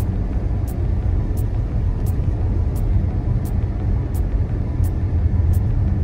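Car driving on a snow-covered road, heard from inside the cabin: a steady low rumble of engine and tyres. A faint high tick repeats about every 0.7 seconds.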